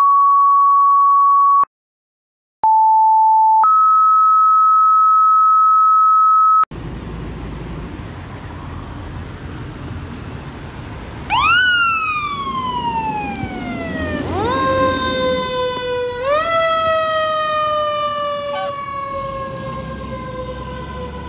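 Fire dispatch paging tones: a series of steady beeps at different pitches, ending with a short lower tone followed by a long higher one. About 11 seconds in, a fire engine's siren starts wailing. Each wail rises quickly and then winds down slowly, repeating over street noise.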